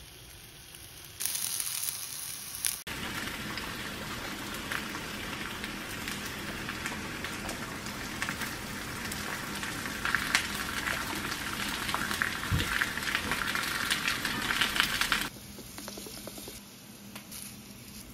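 Slices of Korean zucchini (aehobak) frying in oil in a pan: a steady sizzle with crackles that starts about a second in, grows louder about ten seconds in and cuts off suddenly a few seconds before the end.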